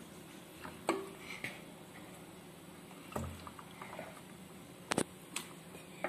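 Raw bone-in beef leg pieces being put into a metal pressure cooker pot: a handful of short, separate knocks of bone and meat against the pot, with a sharp double click about five seconds in.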